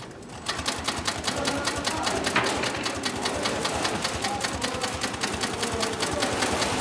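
A 9366HM heavy-duty long-arm zigzag sail-maker sewing machine starts about half a second in and runs at a steady speed, its needle stitching in a rapid, even clatter.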